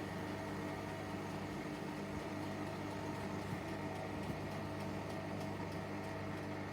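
Hotpoint WMFUG942 washing machine drum spinning, a steady motor hum with several held tones. The drum runs off balance, which the owner puts down to a worn, off-balance spider.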